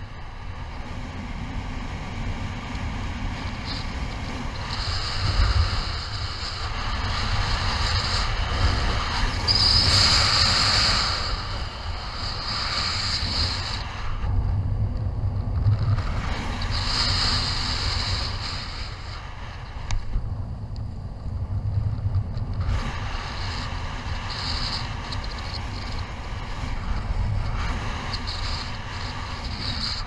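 Strong wind and airflow buffeting the microphone of a camera on a paraglider in flight: a steady low rumble with a hiss that swells and fades in gusts, loudest around ten seconds in and dropping back twice.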